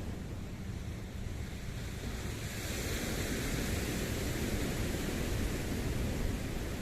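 Steady rushing noise of wind and water, swelling and getting hissier about two and a half seconds in.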